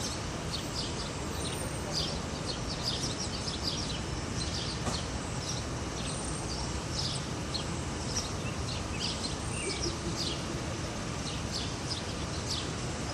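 Park ambience: many small birds chirping in quick, scattered calls over a steady low hum of distant city traffic.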